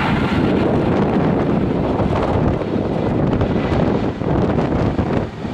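Wind buffeting the microphone over the steady rumble of an Airbus A320 airliner's jet engines on landing approach, gear down.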